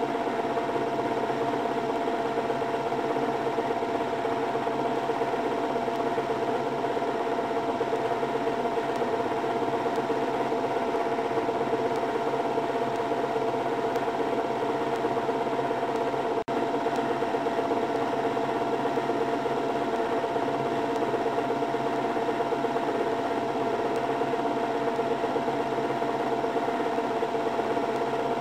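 A small motor whirring steadily with a fine, even rattle and a constant hum.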